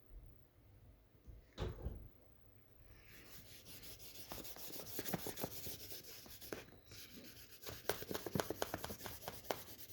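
A colouring tool scribbling back and forth on paper in rapid scratchy strokes, colouring in a large area of sky, starting about three seconds in with a short pause near the middle. A single soft knock comes before it, about two seconds in.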